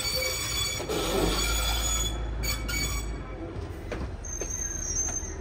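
Plasser & Theurer 08-16U multiple tie tamper in a rail yard: a steady low rumble with thin, steady high squeal-like tones over it, and a brief higher whine near the end.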